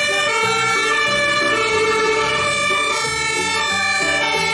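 Two-tone sirens of a German fire engine and ambulance setting out on an emergency call. Several sirens overlap, their high and low notes alternating.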